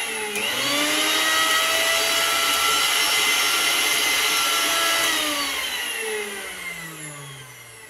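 Preethi Crown 500-watt mixer grinder motor running empty with no jar fitted: a steady high whine that dips briefly at the start and speeds back up. About five seconds in it is switched off and winds down, its pitch falling as it coasts to a stop.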